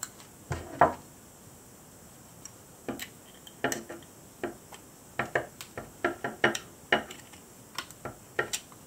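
Pliers crimping the metal tabs of a tin-can armour scale down onto felt: a run of irregular small metallic clicks and taps, thickest in the second half, with one louder knock about a second in.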